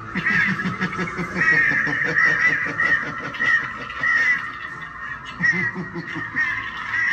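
Duck quacking over and over, a string of short repeated calls.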